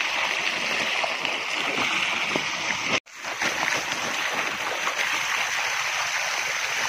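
Steady stream of water gushing from the open end of an irrigation pipe and splashing onto the ground. The sound breaks off for an instant about three seconds in.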